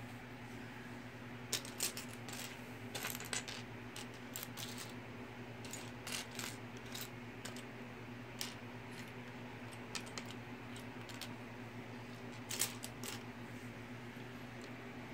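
Loose plastic Mega Bloks building pieces clicking and clattering as a hand sorts through the pile, in irregular clusters of small sharp clicks over a steady low hum.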